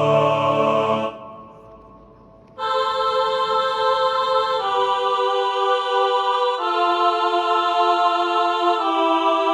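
Background music of slow, held choir-like chords that change about every two seconds, after a brief quieter dip about a second in.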